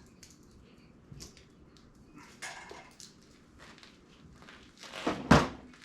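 Scattered clicks and knocks of hand tools and metal parts during the teardown of a 5.3 L LS engine, with one much louder knock near the end.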